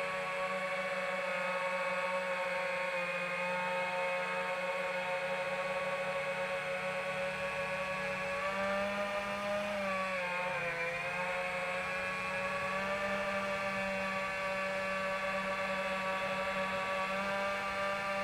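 FPV drone's electric motors and propellers whining steadily, the pitch sagging briefly about ten seconds in as the throttle eases, then rising back.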